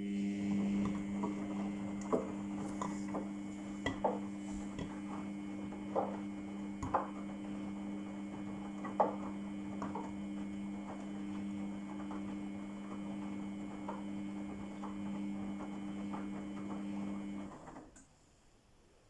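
Samsung washing machine running its wash phase: a steady motor hum while the drum turns the load, with irregular light knocks and clinks from the clothes tumbling against the drum. The hum cuts off suddenly a couple of seconds before the end as the drum stops.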